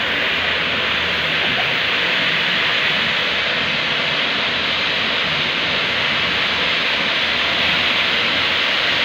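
A small steam tank locomotive venting steam: a loud, steady hiss with no chuffing rhythm, coming from the steam clouding around the front of the engine.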